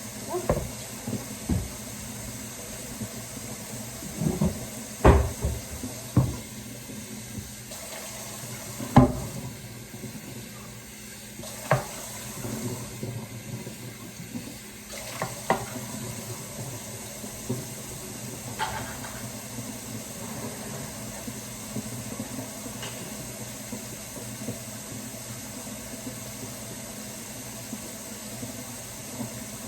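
Kitchen tap running steadily into a sink, with scattered knocks and clatters of dishes and utensils being handled, the loudest about five and nine seconds in.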